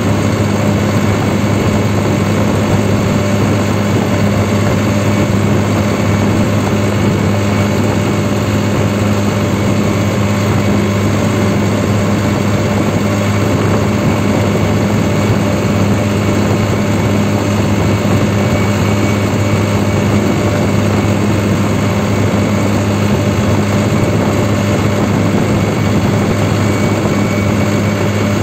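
New Holland 3630 Super Plus tractor's three-cylinder diesel engine running steadily as the tractor drives along a road, held at a fixed hand-throttle setting, heard from the driver's seat.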